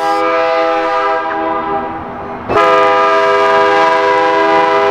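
Canadian National diesel locomotive's air horn sounding a chord of several notes for a grade crossing. One long blast eases off, breaks briefly about two and a half seconds in, then a second, louder blast comes in and holds.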